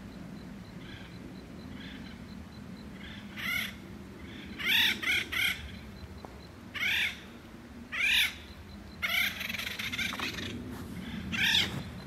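Acorn woodpeckers giving loud, harsh, crow-like calls, starting a few seconds in, singly and in quick runs of two or three. These are the birds' alarm at a squirrel raiding their acorn granary.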